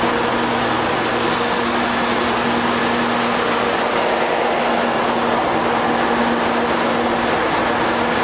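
Saemaeul-ho diesel multiple unit's power car running steadily: a loud, even machine noise with a low, constant hum.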